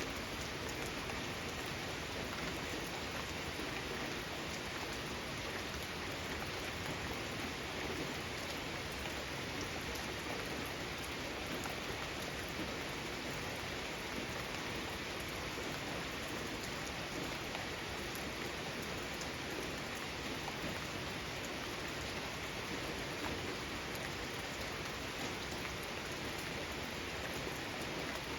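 Steady rain falling: an even, unchanging hiss with scattered individual drops ticking through it.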